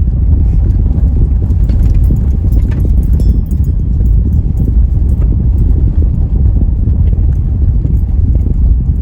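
Car driving along a road, heard from inside the cabin: a steady low rumble of road and engine noise, with a few light clicks about two to three seconds in.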